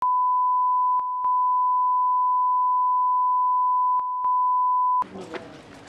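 Broadcast 1 kHz line-up test tone played with colour bars: one steady, loud beep that dips briefly twice, about a second in and about four seconds in, then cuts off suddenly about five seconds in, after which there is faint background noise with light knocks.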